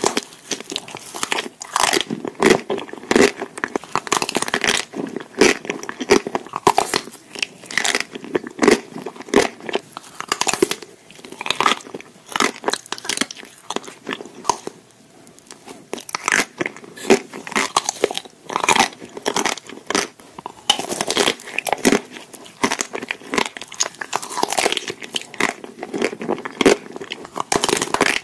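Close-miked biting and chewing of chocolate-coated ice cream bars: the hard chocolate shell cracks and crunches in quick crackly bites, with chewing between them. It eases off briefly a little past halfway, then the crunching picks up again.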